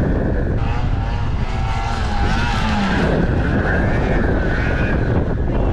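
Snowmobile engine running at a distance, its whine rising and falling in pitch as the rider works the throttle, under heavy wind noise on the microphone.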